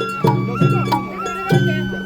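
Sawara bayashi festival music. A high bamboo flute holds long notes that step up and down in pitch, over three sharp drum strikes.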